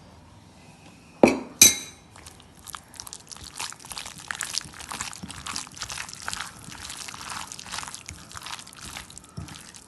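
A hen's egg cracked with two sharp taps against the edge of a bowl, then a run of small clicks and drips as the yolk is passed between the shell halves and the white drained away.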